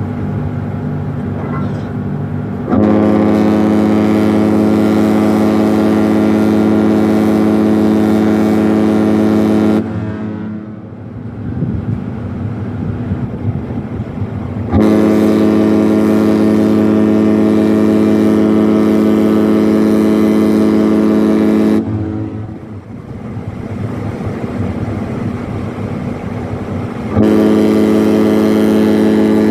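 Cruise ship Europa 2's horn sounding three long, steady blasts of about seven seconds each, the third starting near the end. A quieter, steady low rumble fills the gaps between blasts.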